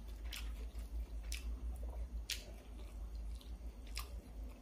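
A person chewing food, with a few sharp mouth clicks about a second apart over a low steady hum.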